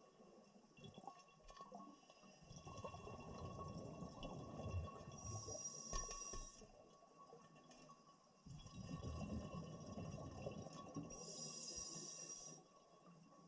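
Scuba diver breathing through a regulator underwater. There are two slow breaths, each a low bubbling rumble of exhaled air lasting about four seconds, with a short high hiss near its end.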